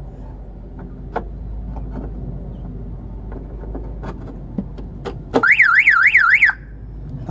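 The Toyota Innova's car alarm siren goes off briefly about five seconds in: a loud warbling tone that sweeps up and down about four times a second, then cuts off after about a second. Before it there are a few light clicks from hands working the plastic fuel filter housing.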